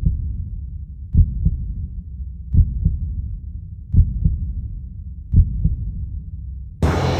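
Heartbeat sound effect: low double thumps, lub-dub, repeating about every one and a half seconds over a low hum. Music comes in near the end.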